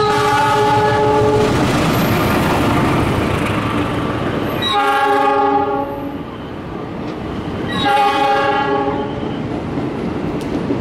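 Diesel locomotive's horn sounding three blasts, each a chord of steady tones about a second long, at the start, about five seconds in and about eight seconds in. Beneath them runs the continuous rumble and wheel noise of an executive-class passenger train passing close by.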